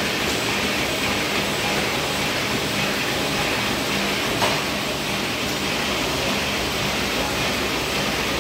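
Hamada RS34 offset printing press running steadily while printing, a fast, even mechanical rhythm over a constant hum. There is one short click about four and a half seconds in.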